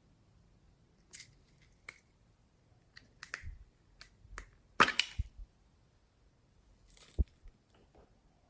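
Glossy slime being pressed and stretched by hand, giving scattered sticky clicks and pops, the loudest a little under five seconds in.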